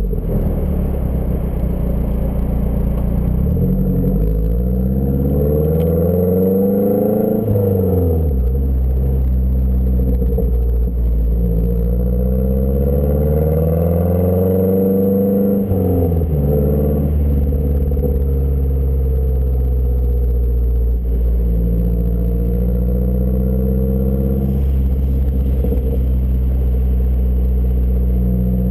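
2012 Mazdaspeed3's turbocharged 2.3-litre four-cylinder through a CP-E turbo-back exhaust with a high-flow-cat downpipe, idling, then revved twice, the pitch climbing for a few seconds each time and dropping quickly back to idle, with a gentler rise later on.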